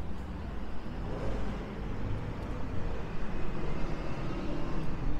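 Wind buffeting the microphone: an uneven low rumble that rises and falls, with a softer hiss of street air above it.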